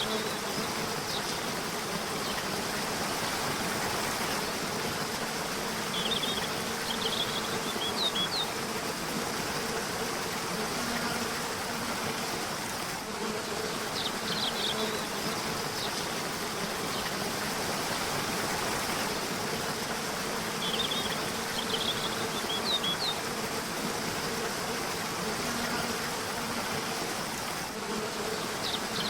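Steady rushing of a river or waterfall. Over it a bird sings a short, high chirping phrase about every seven seconds, and a low buzz comes and goes.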